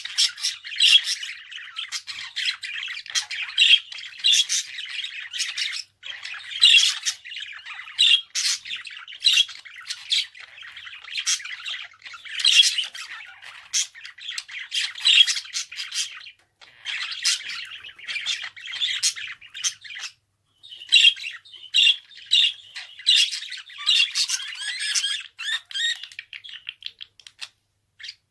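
Budgerigar chattering and warbling: a busy stream of short squawks and chirps, broken by a few brief pauses.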